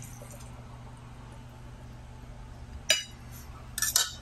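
Metal serving spoon clinking against a stainless steel mixing bowl: one ringing clink about three seconds in, then a short cluster of lighter clinks near the end.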